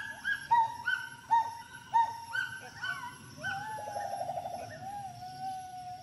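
Gibbon calling: a run of short hooting notes, about two a second, each rising and then dropping away, followed about halfway through by a longer quavering note and a long held note.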